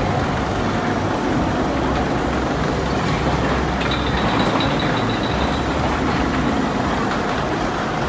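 Mine train roller coaster rumbling along its track, a steady roar of wheels on rail. A faint high tone sounds for a moment about four seconds in.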